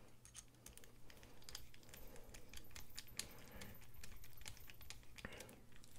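A ratcheting screwdriver driving the pivot screw on a folding knife: a run of faint, irregular clicks.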